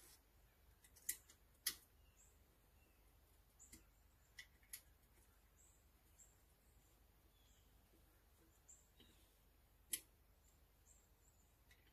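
Faint, sharp tool clicks on the exhaust muffler's mounting bolts as it is being unbolted, about six in all: five in the first five seconds and one near ten seconds. Faint, high, short bird chirps sound now and then in the background.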